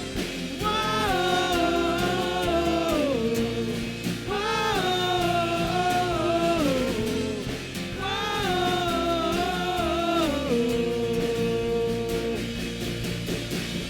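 Live worship band music with long held, wordless sung notes that slide from one pitch to the next over a steady accompaniment.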